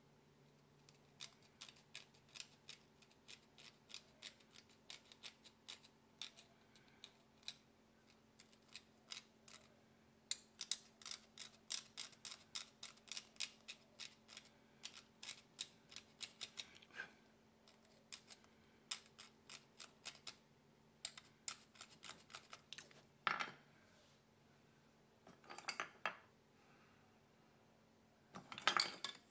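Small steel carving tool taking short scraping cuts into a tagua nut (vegetable ivory): irregular runs of crisp ticks and scratches, several a second, with a few longer scrapes near the end.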